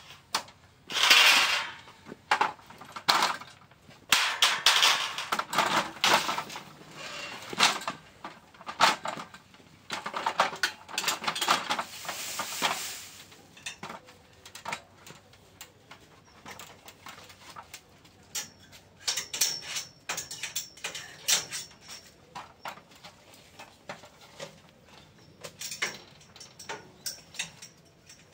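Scattered metallic clanks and clicks from a steel-pipe greenhouse frame and aluminium ladder being climbed and worked on. In the first half there are bursts of rustling from a plastic cover being handled.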